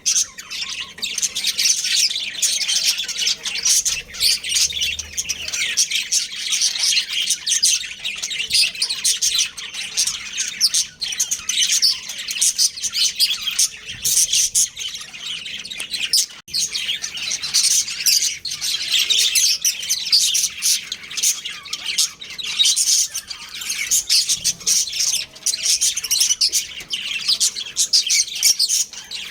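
Budgerigars chirping and chattering continuously in quick, overlapping high chirps.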